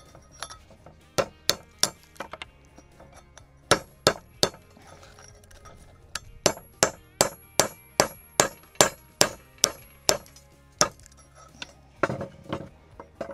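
Hammer blows on a chisel, chipping out slag inside an iron fire-assay cone mold whose lead prill is stuck fast, which the assayer puts down to pyrite. A few scattered metallic clangs, then a quick run of about a dozen even strikes, roughly two and a half a second, each with a short ring, then a few more blows near the end.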